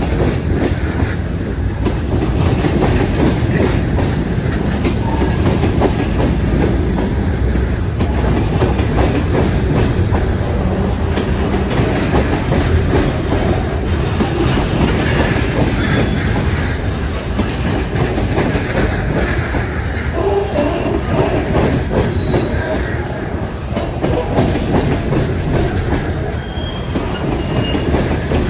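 Freight train of stone hopper cars rolling steadily past, wheels clicking over the rail joints, with brief high wheel squeals now and then in the second half.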